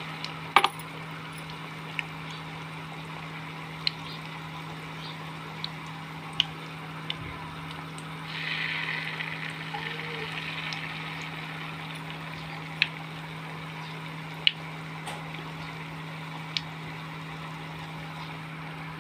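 Wheat-flour batter fritters deep-frying in hot oil: a steady sizzle with sharp pops and crackles every second or two. About eight seconds in, the sizzle swells louder for a few seconds as more batter is dropped in. A steady low hum runs underneath.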